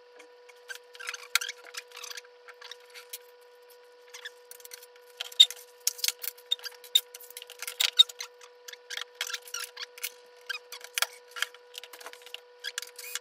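Irregular clicks, clacks and knocks of 3D printer parts and hand tools being handled and set down on a table, busiest in the middle stretch. A faint steady tone runs underneath.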